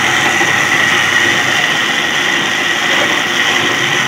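Electric mixer grinder's motor running steadily at full speed, spinning a glass jar of raw meat being minced for kofta. It gives a rough whirr with a constant high whine over it.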